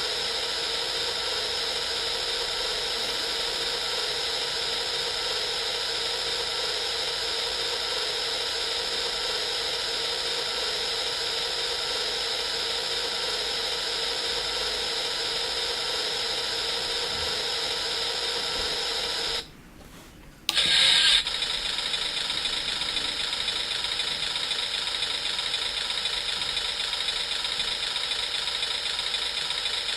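KP-SND44 electronic sound kit playing its synthesized truck-engine effect: a steady buzzy running noise. About two-thirds of the way through it cuts out for about a second, then comes back with a brief louder burst before running on steadily.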